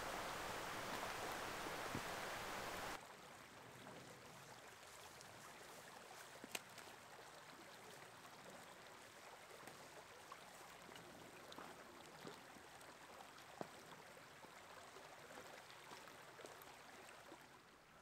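Faint, steady flow of a shallow, rocky mountain creek, with a few faint clicks scattered through it. For the first three seconds a louder, even rushing noise covers it, then stops abruptly.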